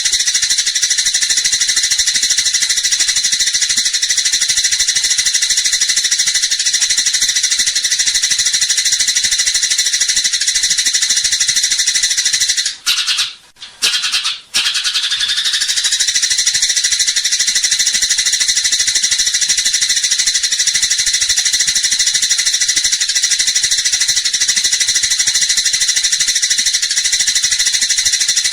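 Eurasian tree sparrows chattering in a fight: a dense, unbroken, high-pitched buzzy chatter that drops out briefly about halfway through, then resumes.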